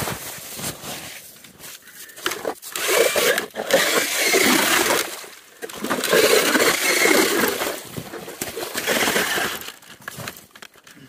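Ice being broken and worked with a hand tool at an ice-fishing hole: two long spells of crunching and scraping, about three seconds each, with scattered knocks between them.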